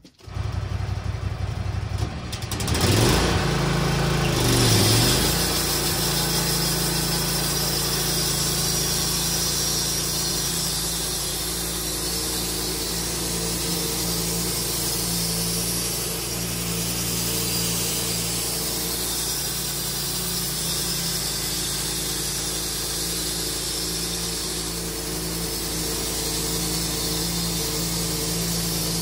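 Wood-Mizer LT15 sawmill's engine starting up, rising in pitch between about two and five seconds in as it revs up and the band blade engages, then running steadily at speed.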